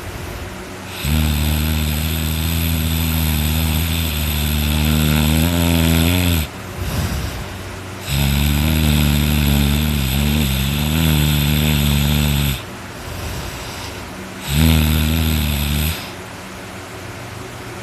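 A person snoring very loud in their sleep: three deep, low snores, the first two lasting about four to five seconds each and the third short, their pitch wavering slightly, with quieter breathing between.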